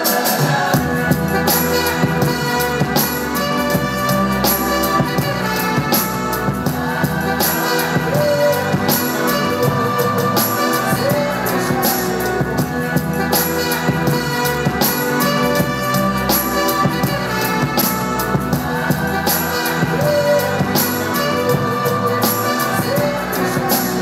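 Music with a steady percussive beat and bass, played through a boAt Stone 1000 Bluetooth speaker as a sound test.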